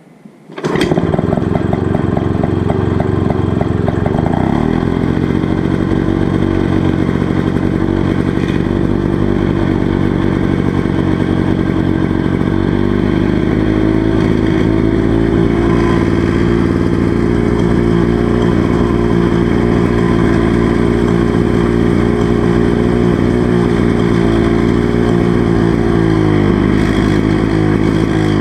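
Freshly rebuilt Victa Special rotary mower's two-stroke engine catching suddenly about half a second in and then running steadily.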